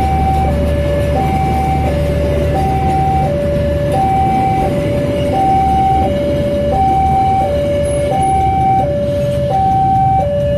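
Two-tone hi-lo siren alternating steadily between a higher and a lower note, each held for about 0.7 s, over a continuous low engine rumble.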